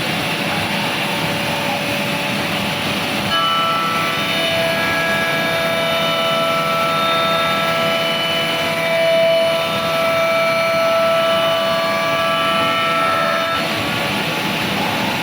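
Bacci Artist TGV 2600 CNC machining center running: a steady mechanical noise, with several whining motor tones joining about three seconds in and shifting as they come and go, until near the end.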